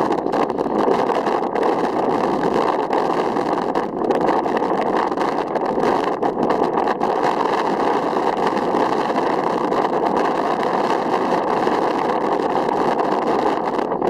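Strong wind blowing across open sand dunes, a steady rushing noise with no letup.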